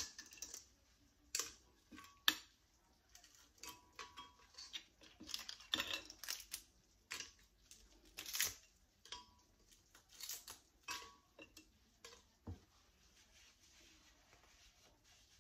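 A tortilla being torn into pieces by hand over a glass blender jar: faint, irregular crackles and light taps as pieces drop into the jar, thinning out about twelve seconds in.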